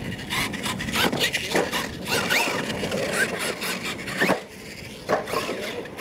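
A radio-controlled monster truck's motor whining in many short bursts that rise and fall in pitch as the throttle is worked, with scattered clicks and knocks as the truck runs over the dirt.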